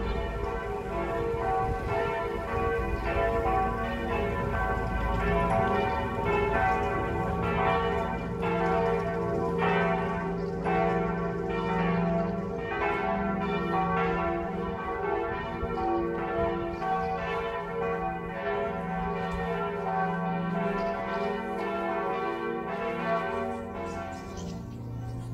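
Several church bells pealing together, struck over and over with their tones ringing on, dying away near the end.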